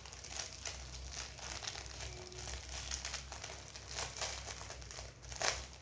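Plastic packaging crinkling as a ring light part is handled and taken out of its wrapping, a string of small irregular crackles with a louder one near the end.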